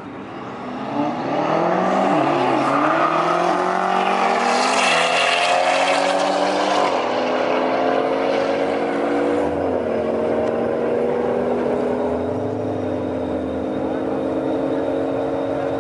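Cars accelerating hard from a standing start in a drag race, engines rising in pitch through each gear and dropping back at the upshifts, then holding a steady high drone.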